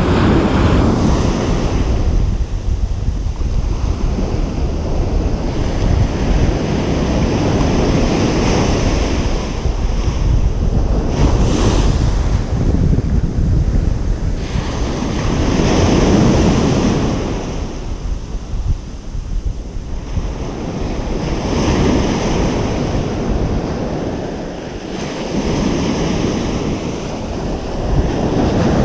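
Ocean waves breaking and washing on a beach, the surf swelling and easing every few seconds, with wind buffeting the microphone and adding a low rumble.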